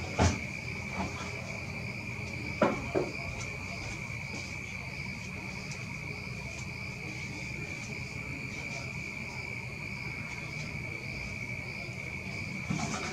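Insects trilling in one steady high note, with a few sharp knocks in the first three seconds.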